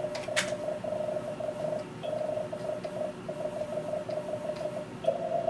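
Fast Morse code (CW) from an Elecraft K3 transceiver's receiver audio: a mid-pitched tone keyed on and off in rapid dits and dahs, with brief gaps between groups. A few sharp clicks come right at the start.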